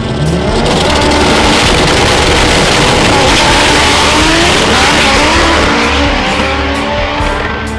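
Drag race car under hard acceleration, its engine note climbing through the pass, with background music underneath.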